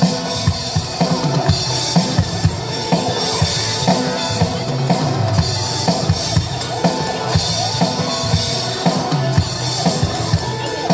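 Music with a drum kit keeping a steady, even beat: bass drum and snare strokes over a full, continuous backing.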